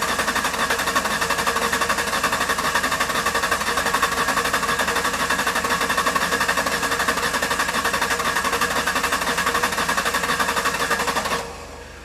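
2005 Ford Ranger 3.0 L V6 being cranked over on its starter without firing, throttle held wide open in clear-flood mode, for a relative compression test; the cranking stops shortly before the end. The test shows one cylinder low on compression, cylinder 4, the one logging the misfire.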